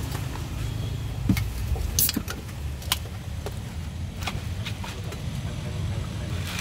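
Steady low rumble of street traffic engines, with scattered short sharp clicks and clinks.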